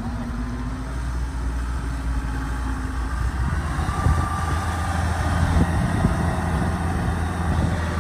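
Engine of a tracked rice-hauling carrier loaded with sacks, running steadily, then pulling harder from about halfway through as the machine drives up onto a canal bridge under its heavy load.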